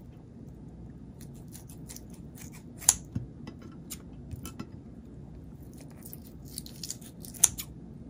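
Kitchen scissors snipping grilled pork sausage off bamboo skewers: a run of small clicks, with two sharper snaps of the blades, one about three seconds in and one near the end.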